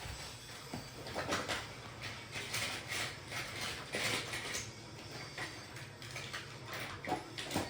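Toy train-set pieces being handled and set down, giving irregular small clicks, knocks and rustling, with a couple of sharper knocks near the end.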